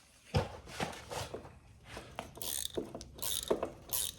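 Metal clinks, rubs and short scrapes from handling the freshly broken motorcycle drive chain and the chain break tool, with a knock about half a second in.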